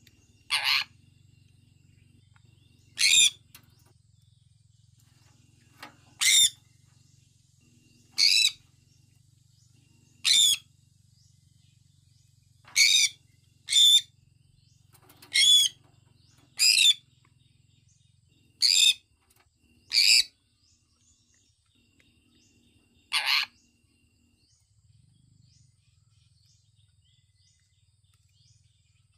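Sun conure calling: about a dozen short, shrill calls spaced one to three seconds apart, which stop a few seconds before the end.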